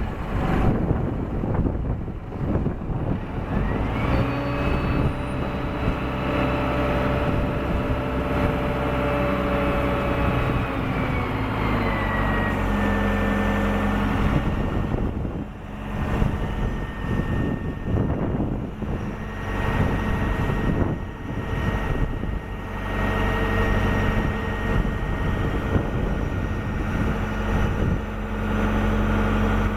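1999 SkyTrak 10054 telehandler's diesel engine running. About four seconds in it revs up with a rising whine, holds there for several seconds, then drops back and runs steadily at a lower speed.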